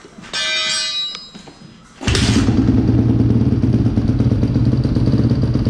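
Honda CRF150 single-cylinder four-stroke engine catching on the first kick about two seconds in and settling into a steady idle, on its first start after an oil change. Before it, a brief pitched tone lasts about a second.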